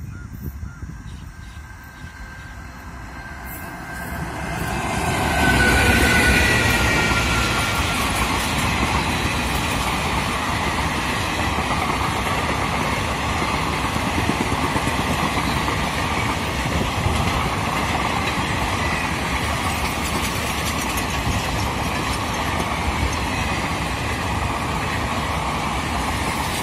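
Indian Railways passenger coaches passing at moderate speed: a steady rumble and rattle of wheels on the rails, growing louder about five seconds in and then holding.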